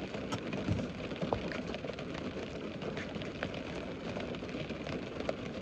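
A person eating close to the microphone: soft chewing with many small, irregular clicks and crackles from mouth and food.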